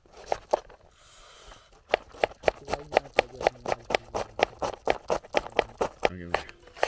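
Kitchen knife chopping red onion on a plastic cutting board: a few scattered knocks, then from about two seconds in a fast, even run of about four to five knocks a second.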